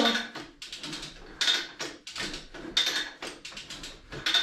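Hand-lever chain come-along being ratcheted under heavy load, a burst of pawl clicking with each lever stroke, roughly every second and a half.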